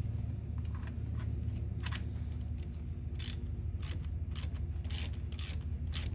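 Ratchet wrench on a tap socket clicking in short runs as it is swung back and forth, turning a thread tap into a stripped head-bolt hole in a Chevrolet LT1 V8 cylinder head to cut threads for an insert. The clicks start about two seconds in and come about twice a second after that, over a steady low hum.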